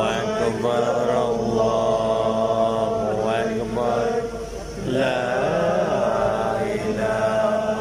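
Islamic chanting in men's voices, slow and melodic, with long held notes that waver and turn, and a short dip in level just before five seconds.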